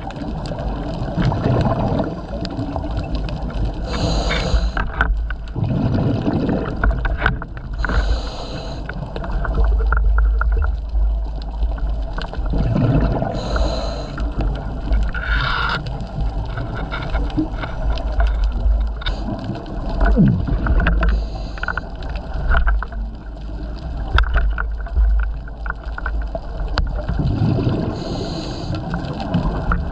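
Scuba regulator breathing underwater: a hiss on each breath and a gurgling rush of exhaled bubbles, recurring about every six to eight seconds over a steady low rumble.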